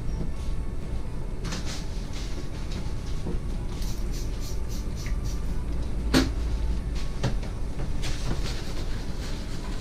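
Scattered knocks and clicks of meat slicer parts being handled, with one louder knock about six seconds in.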